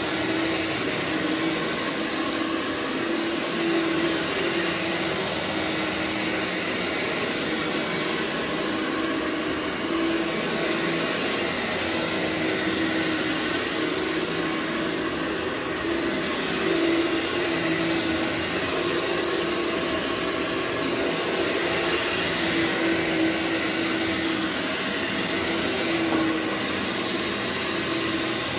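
Bagless upright vacuum cleaner running steadily while it is pushed over carpet. The motor drone carries a low hum that wavers slightly in pitch with the strokes.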